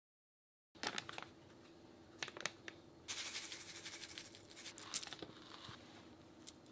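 Small plastic seasoning packets handled and crinkling, granulated chicken-stock powder pouring into a ceramic bowl with a brief hiss, and scattered sharp clicks and ticks, the loudest about five seconds in.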